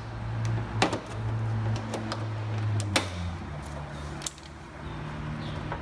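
Plastic front bumper cover of a 2013–2015 Honda Accord being pried and pulled off the fender bracket: a few sharp clicks and snaps as its tabs pop loose, over a low steady hum.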